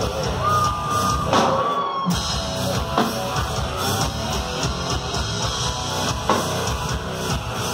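A metal band playing live at full volume: distorted electric guitars over a pounding drum kit, with a held guitar note early on and a split-second stop about two seconds in before the band crashes back in.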